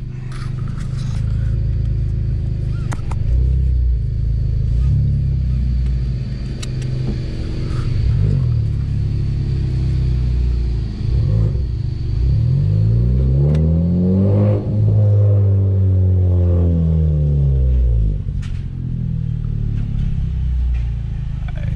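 Honda Civic Type R FK8's turbocharged four-cylinder engine running steadily at low revs, then revving up about twelve seconds in and falling back down over the next few seconds.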